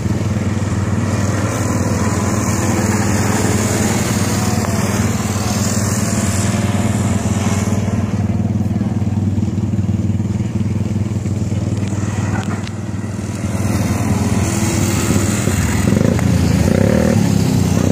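Small engines of several caged dirt-track racing cars running laps together in a steady drone, growing louder with a pulsing rise and fall near the end as the cars come closer.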